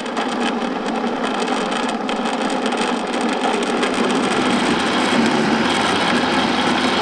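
Electric blender motor running at a steady speed, grinding soaked red beans and water into a slurry.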